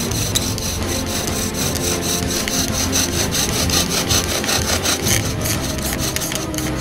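Bow drill at work: a wooden spindle spun back and forth by a cord bow, grinding in a wooden fireboard with rapid, rhythmic rubbing strokes to build friction heat for an ember.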